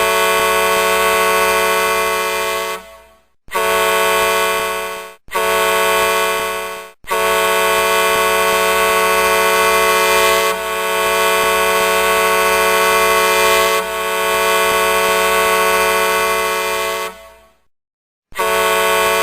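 Truck air horn sounding a steady, multi-tone chord in blasts: one of about three seconds, two short ones, then a long blast of about ten seconds, with another starting just before the end.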